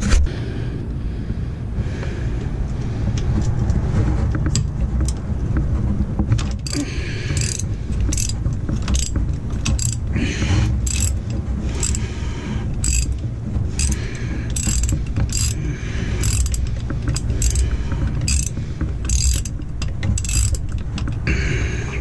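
Hand socket ratchet clicking in short bursts about twice a second, starting a few seconds in, as a starter mounting bolt is worked loose. A steady low rumble runs underneath.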